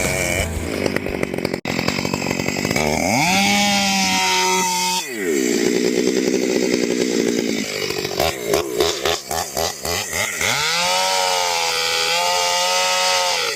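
Gas chainsaw revving up to full throttle, dropping back, running unevenly at low speed, then revving up again and holding high. It is cutting through oak logs.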